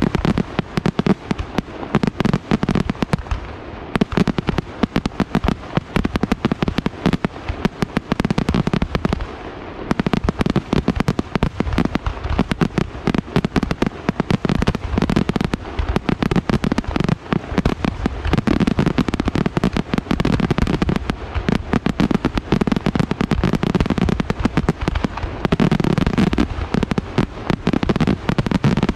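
Aerial fireworks display: a dense, unbroken barrage of shell bursts and crackling, many bangs a second, with a brief lull about ten seconds in.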